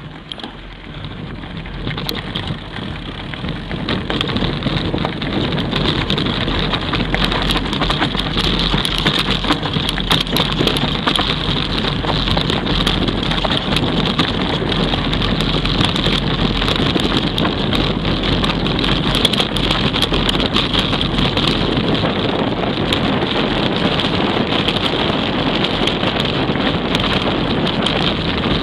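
Mountain bike riding over a rocky gravel trail: tyres crunching on loose stones, with frequent small knocks and rattles from the bike and camera mount and wind buffeting the microphone. It rises in level over the first few seconds.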